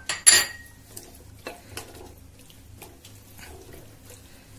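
A sharp clink of a spatula against a pressure cooker, with a brief ringing tone, just after the start. Then soft scrapes and ticks as the spatula stirs thick minced mutton and potato curry in the cooker.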